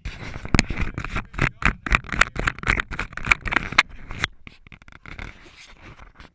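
Handling noise from an action camera being gripped and turned by hand: fingers rubbing and knocking on its housing in a dense run of scrapes and clicks that thins out and quietens about four seconds in.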